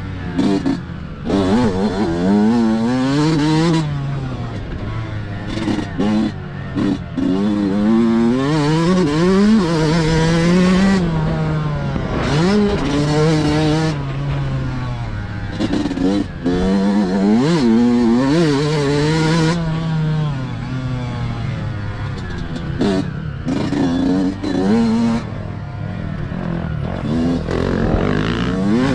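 Yamaha motocross bike's engine revving up and dropping back again and again as it accelerates and shifts around a dirt track. In stretches, wind rushing over the microphone.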